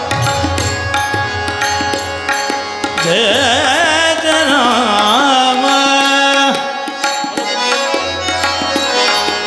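Marathi devotional bhajan: harmonium holding steady notes under tabla strokes, with a singer's wordless, wavering ornamented run from about three seconds in until about six and a half seconds.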